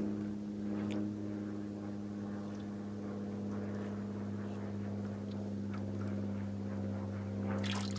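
A boat motor running with a steady, even hum, with a couple of faint clicks over it.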